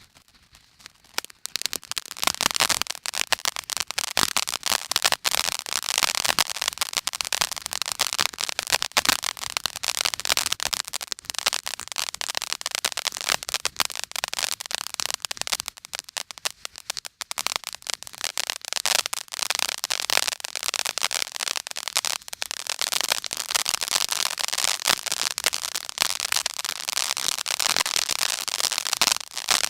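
Fireworks going off in a dense, rapid crackle of many small bangs, starting about a second and a half in and running on without a break, with little deep boom.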